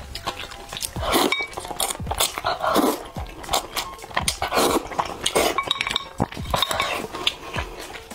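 Close-miked wet chewing and slurping of soft, sauce-soaked braised pork belly, with light clicks of wooden chopsticks against the plate and rice bowl.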